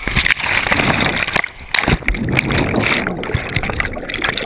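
Rushing, splashing water, loud and irregular, as on a wild-river rapids run.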